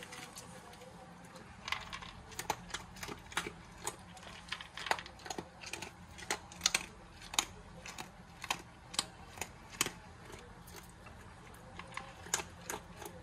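A dog eating dry kibble from a plastic bowl: irregular crunches and clicks of chewed pellets and the bowl, a few a second.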